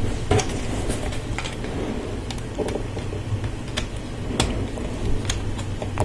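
Scattered light clicks and taps of plastic Lego Technic parts being handled and fitted, over a steady low hum.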